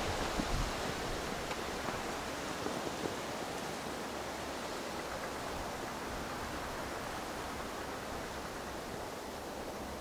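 Distant Shinkansen bullet train running along an elevated viaduct: a steady, even rushing noise that eases off slightly toward the end. A few low wind thumps hit the microphone near the start.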